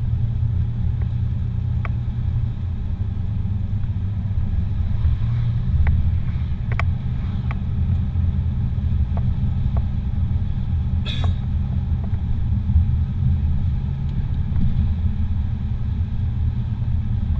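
Car heard from inside the cabin while driving at road speed: a steady low rumble of engine and tyres on the pavement, with a few faint ticks and one brief rattle a little past the middle.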